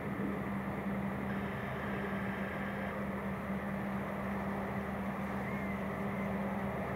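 Krone BigX 770 forage harvester chopping maize and blowing it into a tractor-drawn silage trailer, with the tractor engines running alongside: a steady machine drone with a constant low hum.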